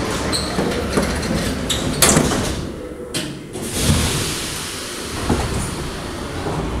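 Metro car's pneumatic sliding doors closing, shutting with a sharp bang about two seconds in, over the steady rumble of the standing train.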